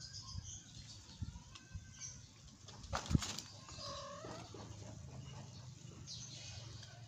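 Kittens scuffling as they play-fight on gravelly ground: scratchy rustles and scattered light knocks, the loudest about three seconds in, with a short call about four seconds in.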